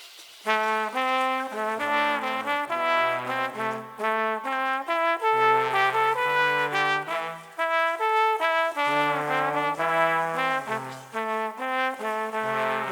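Music: a brass section playing a riff of held chords with no beat underneath, coming in about half a second in.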